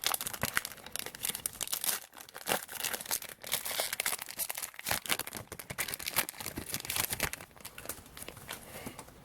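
Plastic trading card pack wrapper being torn open and crinkled by hand, a dense irregular crackling that thins out near the end.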